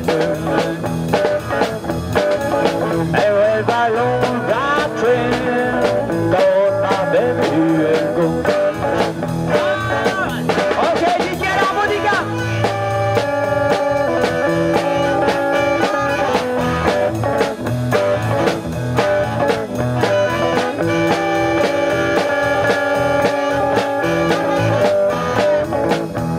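Live blues band playing: an amplified harmonica, cupped against a handheld microphone, leads over electric guitar, bass and drums. The harmonica line slides and bends in the first half, then settles into long held notes from about halfway.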